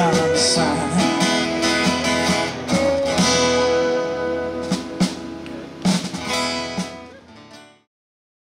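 Live country band playing the song's closing instrumental bars: acoustic guitar, pedal steel guitar and fiddle holding out notes, with a few sharp accents. The music fades and then cuts off to silence near the end.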